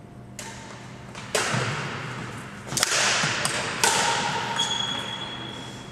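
Badminton rackets striking a shuttlecock in a rally: about five sharp hits a second or so apart, each ringing on in the hall's echo.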